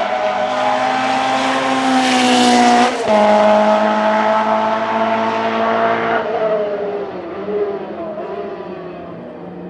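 Lancia Rally 037's supercharged 2.0-litre four-cylinder engine pulling hard under acceleration, its pitch climbing, with one quick upshift about three seconds in. It climbs again, then the car passes by and fades off as the driver eases off.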